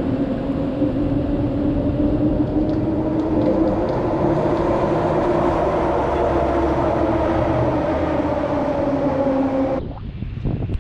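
Detroit People Mover train running on the elevated guideway overhead. Its linear induction motors give a steady two-tone hum over a low rumble. The sound cuts off abruptly near the end and gives way to wind on the microphone.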